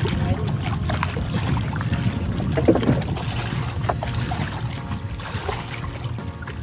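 Water splashing and lapping against a small outrigger boat on the sea, with wind buffeting the microphone.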